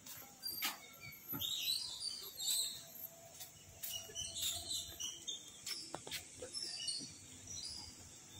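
Birds chirping in short bursts, with a few sharp clicks scattered through.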